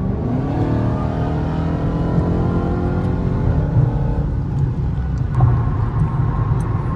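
Supercharged 6.2-litre HEMI V8 of a Dodge Charger Hellcat Redeye accelerating at highway speed, heard from inside the cabin. The engine note rises steadily for about four seconds, then fades into a steady low rumble of road and wind noise.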